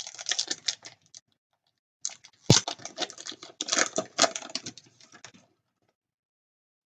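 Crinkling and rustling of a hockey card pack wrapper being opened and the cards handled, in two spells with a sharp click about two and a half seconds in.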